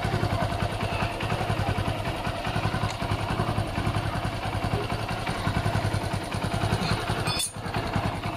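Honda CB110's single-cylinder four-stroke engine idling steadily after a timing-chain repair, with no timing-chain rattle: the tensioner-arm clatter is gone.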